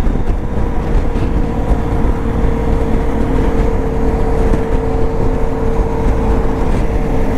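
BMW R 1250 GS Adventure's boxer-twin engine running at a steady highway cruise, with heavy wind rush on the microphone. The drone holds one steady pitch throughout.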